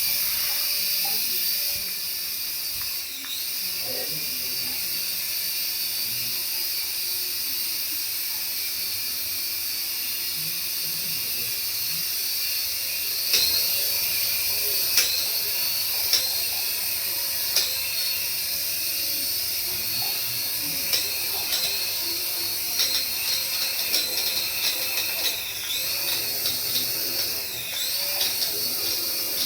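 High-pitched whine of a remote-control toy's small electric motors running. The pitch dips briefly now and then as the motor speed changes, and there are scattered sharp clicks in the middle and later part.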